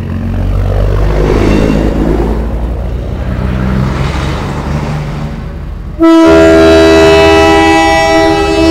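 Big-rig semi trucks' diesel engines rumbling as a truck drives past close by. About six seconds in, a truck's air horn blasts loudly, a chord of several tones held for about three seconds.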